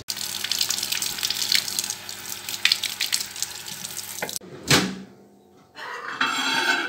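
Kitchen tap running into a sink as cherry tomatoes are rinsed under the stream; the water stops abruptly a little over four seconds in as the tap is turned off. A knock follows, then a short hum near the end.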